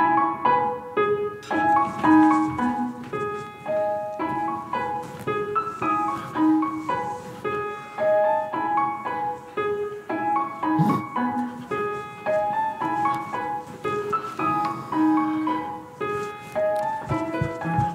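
Background piano music: a run of quick notes.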